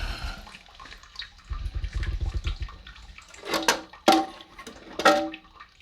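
Toilet-tank parts being handled during a fill-valve and flapper repair: a low rumble, then four sharp knocks, the last ones ringing briefly. Water trickles and drips in the tank.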